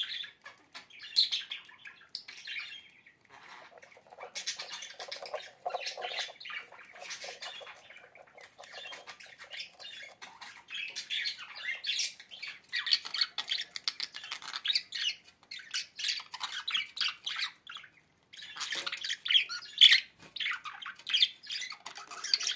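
A bird squawking and chirping in a busy, irregular run of short calls, with a few brief pauses.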